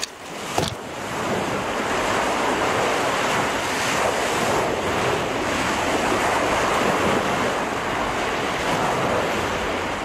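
Surf breaking and washing onto a beach in wind: a steady rush of waves that swells up over the first second.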